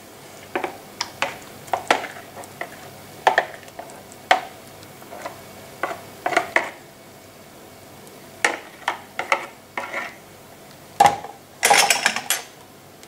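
A metal utensil scraping thick pâté out of a plastic food-processor bowl into a ceramic dish: irregular clinks and scrapes against the bowl, with a longer, louder scrape about eleven seconds in.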